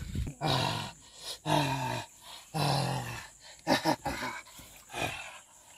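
A man making growling, roaring animal-like cries in a string of short bursts, voicing a wild creature attacking.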